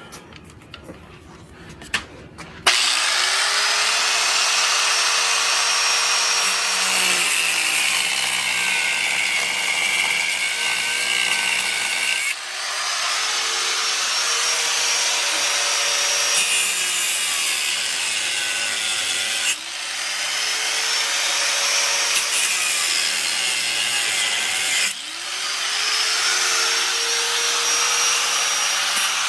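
Angle grinder cutting through one-way security screws: it starts about three seconds in, runs with a steady grinding hiss, and three times briefly drops and spins back up.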